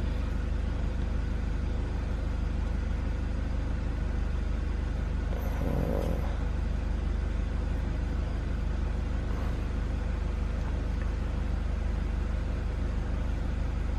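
Steady low mechanical hum of a running machine, with a faint short sound about six seconds in.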